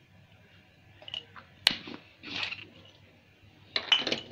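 A few light clicks and taps of a spoon and spice containers as spices go into the stuffing, with one sharp click before the middle, a brief rustle, and a quick run of clicks near the end.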